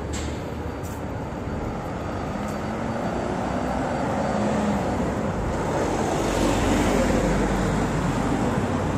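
Road traffic on a city street, with a car passing close by and the noise swelling to a peak about two-thirds of the way in, a low engine rumble under it.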